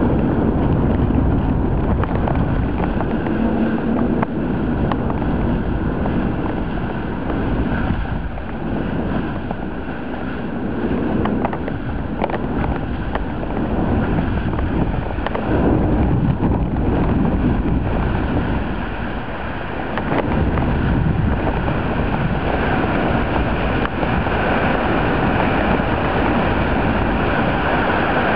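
Steady rushing wind noise on the microphone of a camera hung from a kite, rising and falling a little in level.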